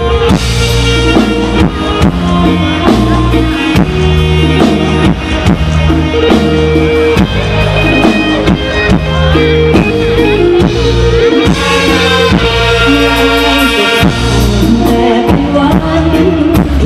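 Live Thai luk thung band playing a song's introduction at full volume: drum kit keeping a steady beat under a repeating bass line and a melody on top.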